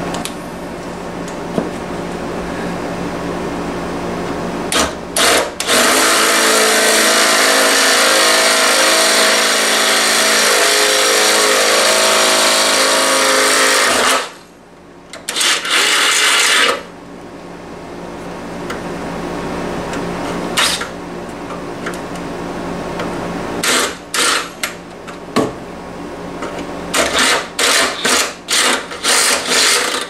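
Cordless drill boring through the sheet-metal base pan of a window air conditioner to enlarge a drain hole. There is one long loud stretch of cutting from about six to fourteen seconds in and a shorter one just after, then a series of short trigger bursts in the last third.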